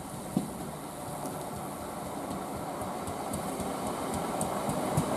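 Southern Class 377 Electrostar electric multiple unit running along the platform, a rumble of wheels on rail that grows steadily louder. There is a single knock less than half a second in, and light clicking from the wheels starts in the last couple of seconds.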